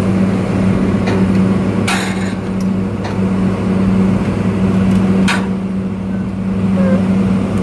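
Excavator's diesel engine running steadily, heard from inside the cab, with a few sharp knocks about one, two, three and five seconds in.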